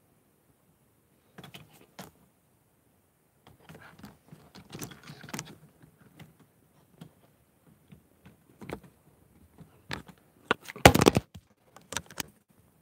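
Handling noise: scattered clicks, taps and rustles, with a loud rattling cluster of clicks about 11 seconds in.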